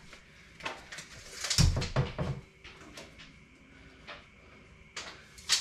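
Light clicks and knocks from handling things at a cabinet while measuring a gap, with a louder cluster of knocks about two seconds in.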